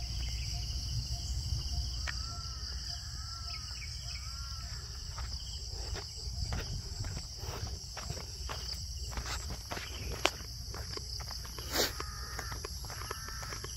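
Steady high-pitched chorus of insects, with the walker's footsteps on grass and a dirt path, a quick run of them from about five seconds in.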